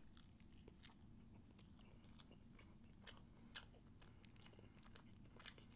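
Faint chewing of a mouthful of cornbread, with scattered soft mouth clicks and smacks, a little louder about three and a half seconds in.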